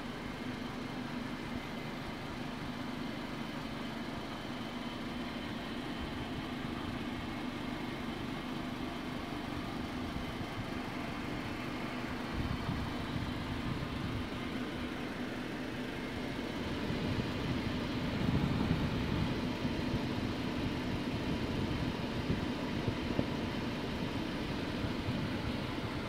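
Steady hum of a running liquid-cooled desktop PC's fans and water-cooling pump, with one constant mid-low tone. A deeper rumble swells for a few seconds past the middle, then settles.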